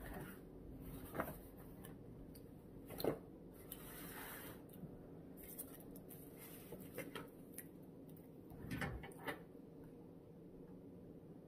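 Faint handling of a takeout meal and its packaging: a few soft knocks and short rustles. The sharpest knock comes about three seconds in, and a cluster of knocks comes near the end.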